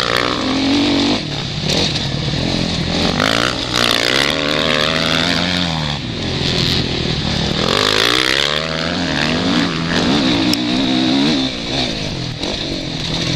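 Suzuki RM-Z450 single-cylinder four-stroke motocross engine heard close up from the rider's helmet camera, its pitch repeatedly climbing under throttle and dropping back as the rider shifts and rolls off, with wind rushing over the microphone.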